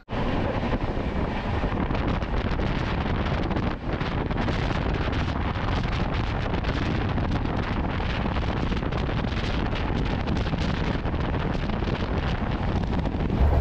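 Wind buffeting the microphone of a camera held at the window of a moving train, over the steady running noise of the train.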